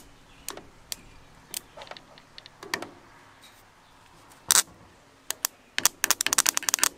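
Hand tools clicking and tapping while the failed starter is unbolted from the truck: scattered single metallic clicks, then a fast run of ratchet-wrench clicks about six seconds in.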